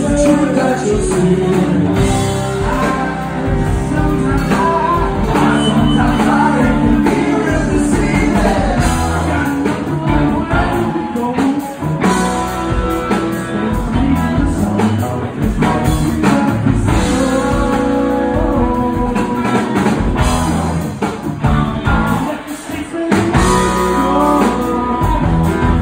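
A live rock band playing a song with sung vocals, drums and keyboards, heard from the audience.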